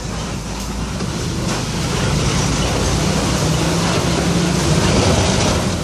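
Open-sided safari truck driving along, its engine running steadily under broad road noise that grows a little louder about two seconds in.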